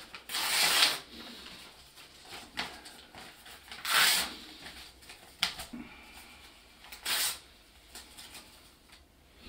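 A sheet of paper being handled and folded, rustling and crinkling in three main short bursts with a few smaller crackles between them.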